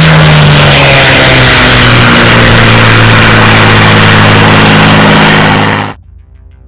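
A Spitfire's piston engine running loud in a low flypast, its pitch sagging slightly as it goes by. The sound cuts off abruptly near the end.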